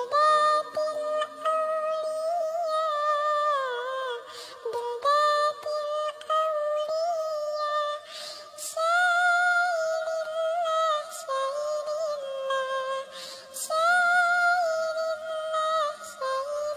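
A high, synthetic-sounding singing voice carrying a slow melody of long held notes that step and slide between pitches, with short hissing sounds between phrases.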